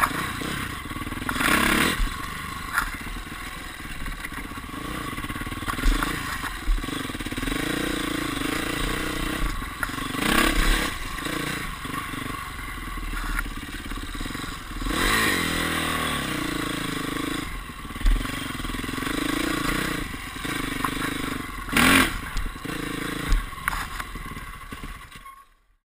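Dirt bike engine revving up and down as the bike is ridden over a rough trail, with clattering and knocks from the bumps. The sound fades out near the end.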